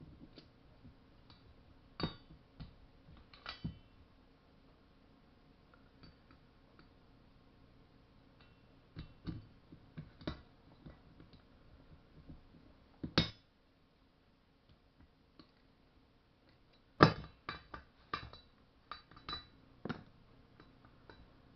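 Scattered clinks, clicks and knocks of small metal parts and hand tools being handled on a workbench, with one sharper knock about halfway through and a quick cluster of clinks after it.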